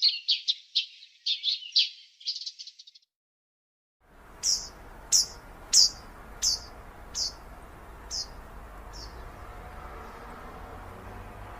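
Small birds chirping in quick clusters of high notes that stop about three seconds in. After a moment of complete silence, a single bird gives a series of about eight sharp, falling chirps, evenly spaced and fading away, over a steady background hiss and hum.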